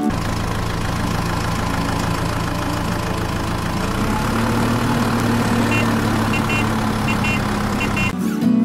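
Small motor running steadily as it drives a handmade toy tractor pulling a loaded trolley, with a constant low hum. A few short high chirps come in the second half.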